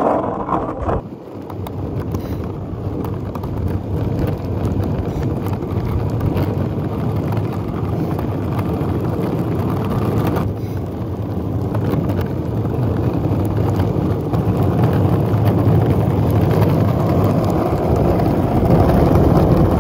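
Skateboard with Powell Dragon Formula urethane wheels rolling over rough, coarse asphalt: a steady gritty rumble that builds slowly, with a short break about ten seconds in.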